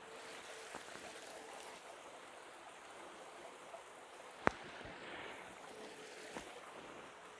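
Faint steady rush of a flowing stream, with one sharp click a little past the middle.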